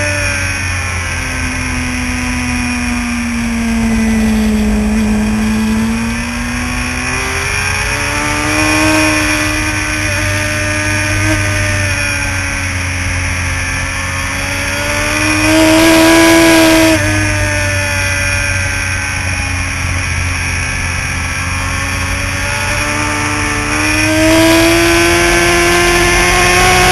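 Racing motorcycle's engine at speed on a track, heard from a camera mounted on the bike, its pitch sinking and rising with the revs through the corners. About sixteen seconds in the revs climb to a peak, then drop suddenly.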